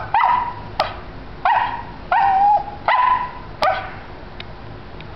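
A small shaggy dog giving a string of short, whiny barks and yips, about six in four seconds, one drawn out longer, then falling quiet: demanding vocalizing aimed at its owner.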